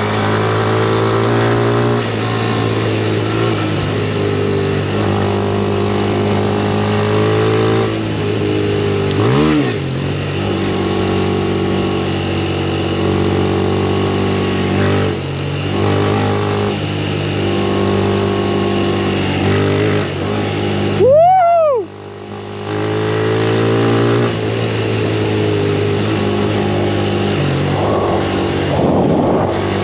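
Honda CG 160 Start motorcycle's single-cylinder four-stroke engine running steadily while being ridden on a rough dirt track. The engine pitch rises and falls briefly a few times, most sharply about two-thirds of the way through, just before a short dip in loudness.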